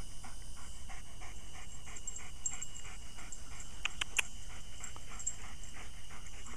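A dog panting hard and fast, about three to four breaths a second, with a couple of sharp clicks about four seconds in.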